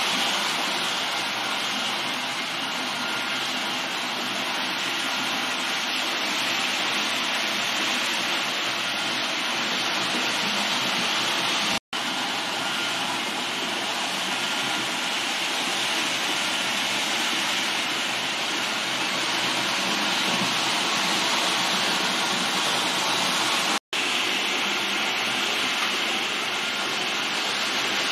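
H0-scale Roco model of an ÖBB Rh 1216 Taurus electric locomotive running with its train of tank wagons, giving a steady rushing noise. The sound cuts out very briefly twice, about 12 and 24 seconds in.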